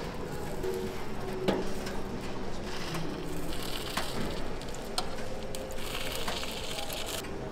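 Takoyaki batter sizzling and bubbling in a hot cast-iron griddle, with a few sharp clicks of metal tongs against the pan.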